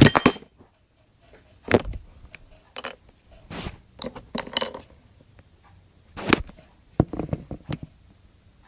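Handling noise of hard computer parts: a loud cluster of clicks and knocks at the start, then scattered single knocks and clicks as the parts are picked up and set down.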